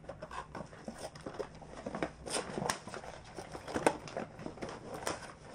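Toy packaging being unwrapped by hand: irregular rustling and crinkling with scattered clicks and taps, and one sharper snap about four seconds in.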